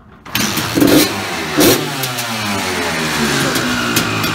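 Freshly rebuilt Suzuki RM two-stroke dirt bike engine starting for the first time. It fires up suddenly about a third of a second in, is revved twice in quick succession, then drops back to a steady idle.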